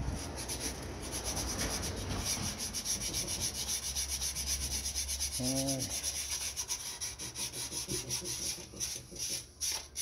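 Quick back-and-forth hand rubbing strokes on a part, several a second, like sanding or scrubbing; the strokes space out and stop near the end.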